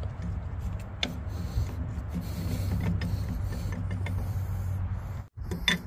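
A steady low mechanical hum with a couple of light clicks.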